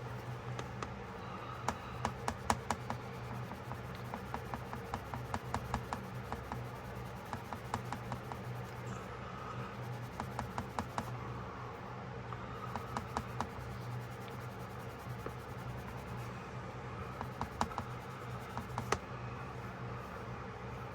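Hands working on a small pocketknife: clusters of quick small clicks and scratching, over a steady low hum.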